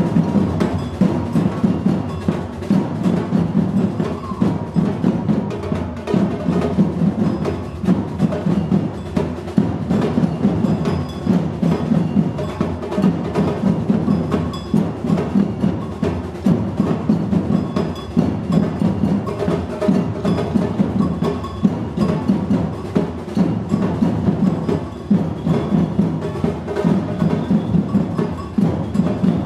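Batucada-style percussion ensemble playing a dense, steady rhythm: deep drums carry the beat under rapid sharper strokes.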